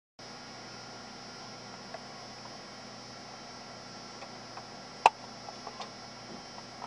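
Steady electrical hum with several fixed tones under a light hiss, with scattered faint clicks and taps and one sharp click about five seconds in.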